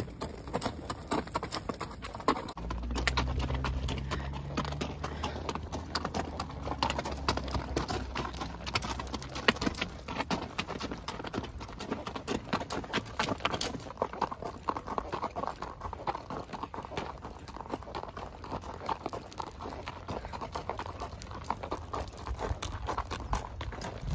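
A ridden horse's hooves clip-clopping on a gravel road shoulder, a continuous run of hoofbeats. A low hum joins in from about two and a half seconds to about six seconds in.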